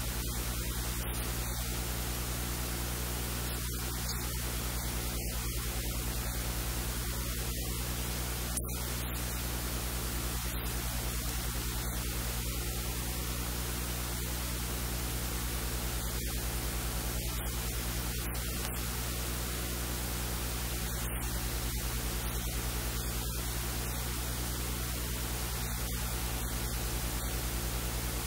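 Steady hiss like static, with a low electrical mains hum underneath: recording noise from the audio chain.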